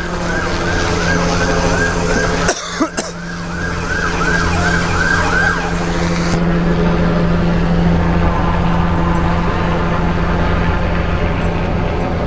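Police car siren in a fast yelp, rising and falling about three times a second, that stops about five and a half seconds in. A steady low drone runs underneath, with two sharp knocks about two and a half seconds in.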